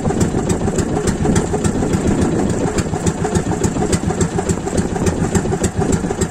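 Small engine of a motorized outrigger fishing boat idling steadily, with a regular sharp ticking running through it.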